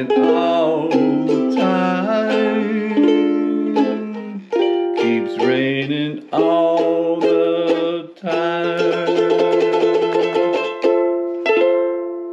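Ukulele strummed through the closing instrumental bars of a slow song, with a few brief breaks between phrases. It ends on a last strummed chord that rings and fades near the end.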